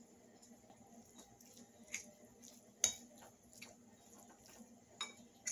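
Metal fork stirring and mashing shredded chicken on a ceramic plate: soft scraping, with sharp clinks of metal on the plate about two and three seconds in and twice near the end.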